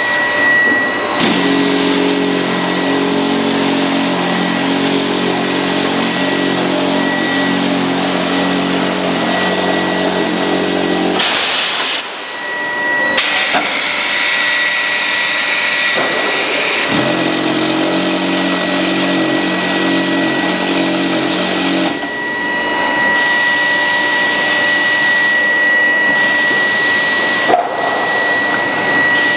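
Grinding-ball production line machinery running loud and steady, with a constant high whine. A lower motor hum runs for about ten seconds, drops out with a short hiss, then returns for about five seconds.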